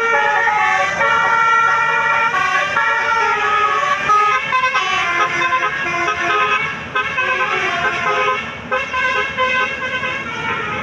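Bus telolet horn playing a tune: a run of loud, held horn notes that step up and down in pitch, several tones sounding together.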